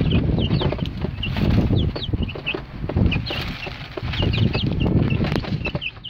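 Young broiler chickens peeping, many short high cheeps overlapping, while they peck grain from a plastic feed tray, with scattered light taps. A loud low rumble runs underneath.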